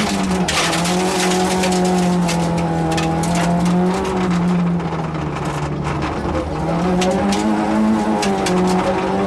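Yugo rally car's engine heard from inside the cabin at speed, its pitch holding, easing off through the middle and then climbing again as the driver accelerates. Frequent sharp ticks and clatters of gravel striking the underside run over it.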